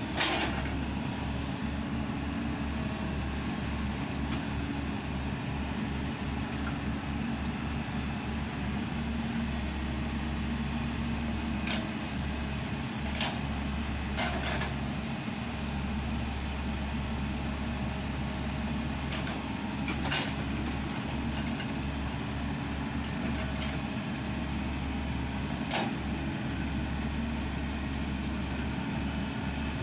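Excavator's diesel engine running steadily, with a few short, sharp metallic knocks scattered through.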